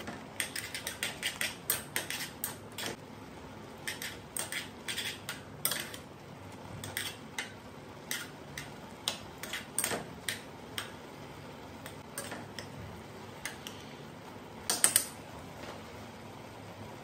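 Metal chopsticks clinking and scraping against a stainless steel saucepan as instant noodles are stirred through a thick sauce: irregular taps for most of the time, a louder pair of clacks near the end, then the stirring stops.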